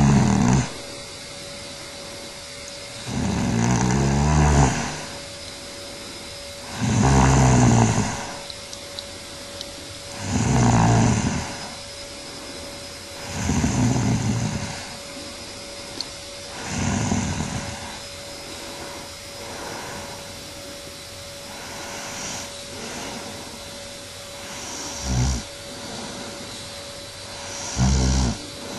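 A woman snoring in her sleep, one loud snore about every three and a half seconds. Past the middle the snores turn faint for a while, then two short loud snores come near the end.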